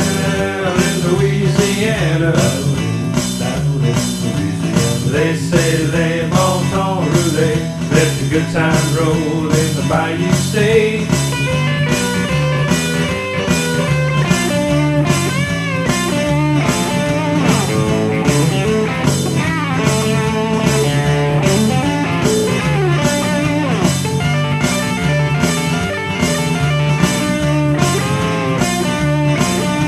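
Background music: a bluesy rock song with guitar over a steady beat.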